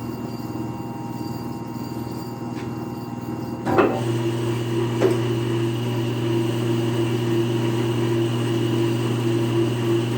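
3 hp electric motor driving a planer, running with a steady hum. About four seconds in there is a sharp knock, and the hum grows louder and fuller, with a higher tone added; a lighter click follows a second later.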